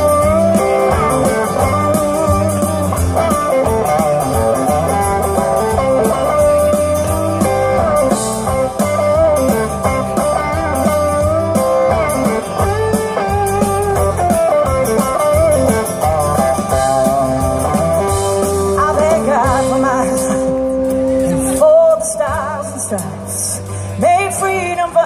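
Live country-rock band playing an instrumental break: a lead guitar line with bending notes over drums, bass and strummed acoustic guitar, with a long held note near the end.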